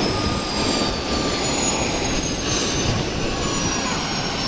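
Air ambulance helicopter running on the ground: a loud, steady rush of turbine and rotor noise, with high turbine whines that sink slowly in pitch.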